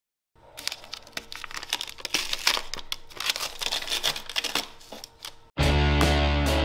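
Brown masking paper and tape being peeled and pulled up off a painted wooden shelf, crinkling and crackling. About five and a half seconds in, guitar music starts abruptly and is louder than the paper.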